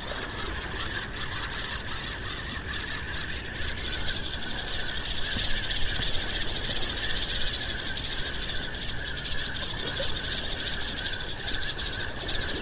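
Fishing reel being wound steadily, its gears giving a fast, even ticking whirr as line is retrieved with a mackerel on.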